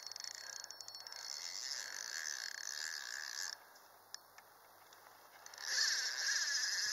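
Fishing reel drag buzzing as a hooked carp pulls line off a light spinning rod. It stops suddenly about three and a half seconds in and starts again, louder, about two seconds later as the fish runs again.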